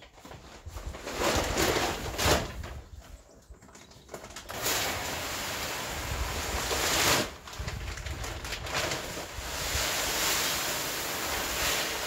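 Chicken layers pellets pouring from a plastic feed sack into a plastic feed bin: a steady rushing hiss that starts about four seconds in, after some crinkling and rustling of the sack.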